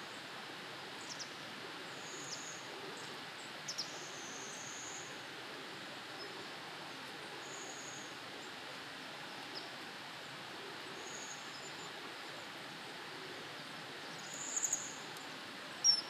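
Short, thin, high bird calls every few seconds, with a louder run of three quick notes near the end, over a steady outdoor hiss. A sharp click comes right at the end.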